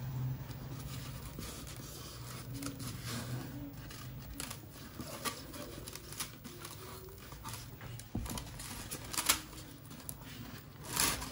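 Hand-cut expanded polystyrene foam rubbing, creaking and crackling as a hot-wire-cut piece is worked free of the block, with scattered small clicks and a sharper click a little past nine seconds. A low hum sits under it for the first few seconds.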